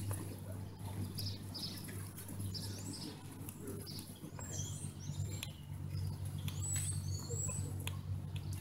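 Small birds chirping: scattered short high notes and a few curved, rising-then-falling whistles in the middle of the stretch, over a steady low hum.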